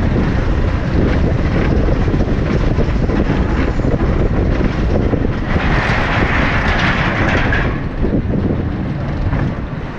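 Trace du Hourra bobsled coaster train running fast down its open trough: a steady rumble and rattle of the wheels. About halfway through a hiss builds for a couple of seconds, and the noise eases a little near the end.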